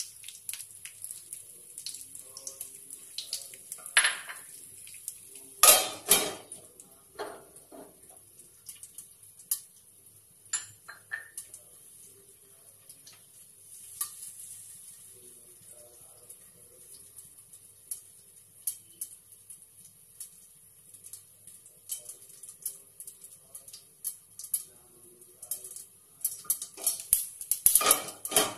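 Mustard seeds, cumin and dried red chillies frying in hot oil in a small steel pan, with a steady sizzle and many small crackling pops. A few loud metal clatters of a spoon and a steel lid against the pan come about four and six seconds in, and more near the end as the lid is lifted.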